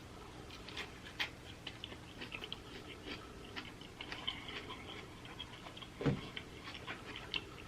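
Close-miked chewing of pizza: soft, scattered wet clicks and crackles of mouth sounds, with one louder thump about six seconds in.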